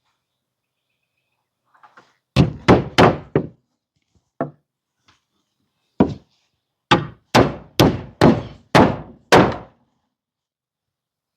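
Hammer driving nails through wooden battens into board siding: four quick blows, a single lighter tap, then a run of about seven more blows, each ringing out briefly.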